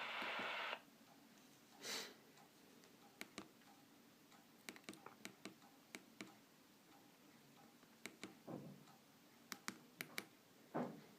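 Scattered light clicks and taps of a mobile phone being handled and operated, irregular and a few per second at most. A steady hiss stops suddenly under a second in.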